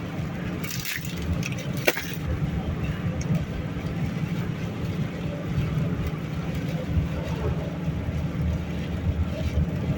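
Car cabin noise while driving through a strong windstorm: a steady low rumble of road and wind, with a sharp tap about two seconds in.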